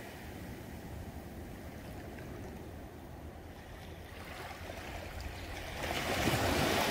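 Small sea waves washing against the shore, with a louder wash of surf swelling about six seconds in.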